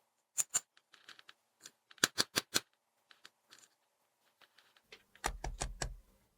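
Sharp clicks and taps of small plastic toy pieces being handled: two quick clicks, a quick run of four about two seconds in, then a cluster of duller knocks near the end.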